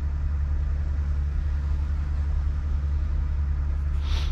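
Truck engine idling, heard from inside the cab as a steady low rumble, with a brief hiss near the end.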